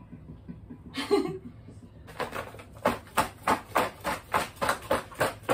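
A plastic-gloved hand rubbing spice into raw fish in a plastic tub, crinkling and squishing in a steady rhythm of about three strokes a second that starts about two seconds in. A brief voice sound about a second in.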